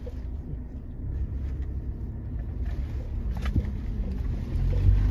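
Vehicle engine and road rumble while driving, a steady low drone that grows louder near the end.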